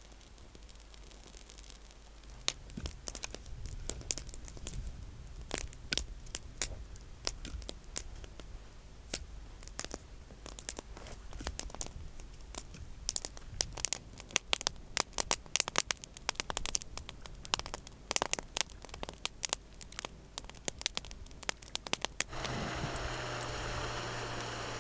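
Kindling and bark catching from a lighter and crackling as they burn, with irregular sharp pops that come thicker as the fire takes. About 22 seconds in this gives way to the steady drone of a boat's outboard motor running on the river.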